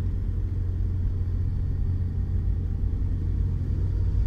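Steady low rumble of engine and road noise inside the cabin of a manual car on the move.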